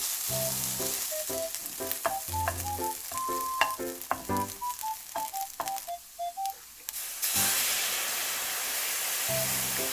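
Fried-rice ingredients sizzling in oil in a hot frying pan as they are stir-fried, under light background music. About seven seconds in, the sizzle suddenly gets louder.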